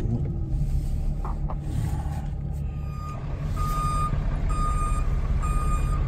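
A plow truck's backup alarm starts beeping about halfway through, a steady tone about once a second as the truck reverses, over the low rumble of the truck heard from inside the cab.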